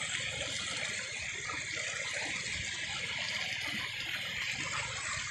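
River water flowing over rocks, a steady rushing hiss.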